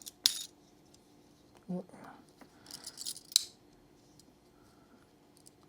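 Metal tools of a Victorinox Swiss Army knife being folded and opened, with two sharp snapping clicks as blades spring shut or open: one just after the start and a louder one about three and a half seconds in. Softer clicking and handling sounds come between them.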